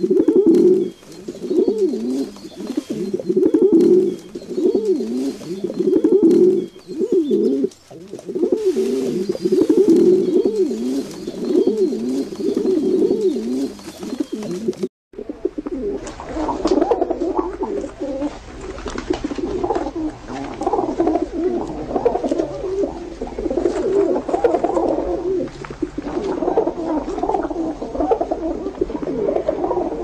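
Pigeons cooing: a run of repeated low coos, then, after an abrupt cut about halfway through, a denser stretch of several pigeons cooing over one another.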